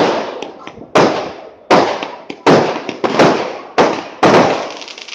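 Aerial firework shells bursting in quick succession: about seven loud, sharp bangs in five seconds, each dying away in its own echo before the next.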